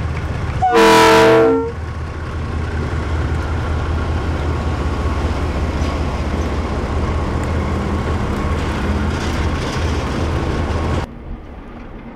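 KiwiRail DXC-class diesel-electric locomotive sounds its horn once, a chord about a second long, as it approaches, then its engine runs and the freight train rolls past close by with a steady rumble. Near the end the sound drops suddenly to a quieter, more distant train rumble.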